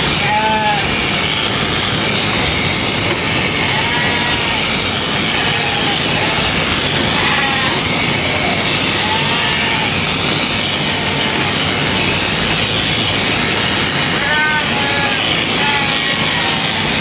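Sheep bleating in short calls, several times and from more than one animal, over a constant loud noise that does not let up.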